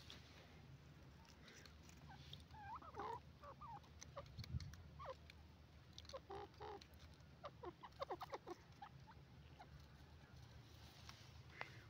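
Grey francolin giving faint, short clucking notes: a few scattered ones, then a quick run of them about eight seconds in.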